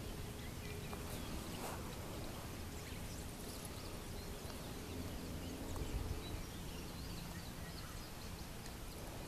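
Faint outdoor ambience: a low steady rumble with scattered short, high chirps of small animals.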